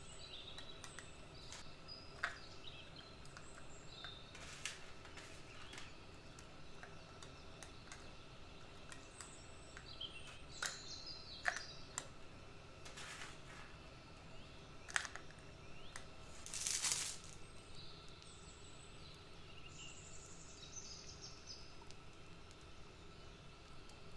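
Metal spoon clicking and scraping against small plastic dessert cups as chopped Toffifee pieces are dropped onto the cream: scattered light clicks with small squeaks, and one longer, louder scrape about two-thirds through. A faint steady hum lies underneath.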